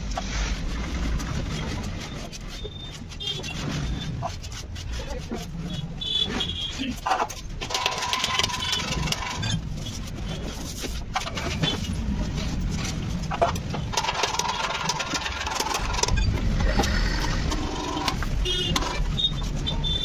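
Street noise: vehicle engines running with voices in the background.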